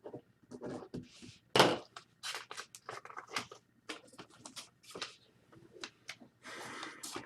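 Trading cards being handled and shuffled on a table: a series of short rustles and scrapes, one sharper one about one and a half seconds in and a longer rustle near the end.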